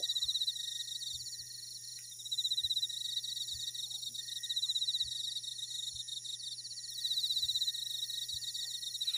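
Crickets chirping in a chorus: rapid pulsing trills in bouts of about a second, coming back every second or two over a steady high insect drone.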